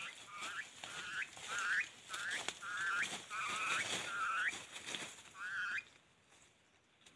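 A bird calling: a run of about eight short, wavering calls, each ending in a quick upward flick in pitch, repeated at roughly one a second-and-a-bit and stopping near the six-second mark.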